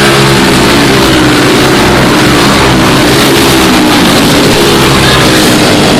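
A pack of four-stroke racing go-karts with Briggs & Stratton Animal single-cylinder engines running at race speed, their engine notes easing slightly lower in pitch through the middle.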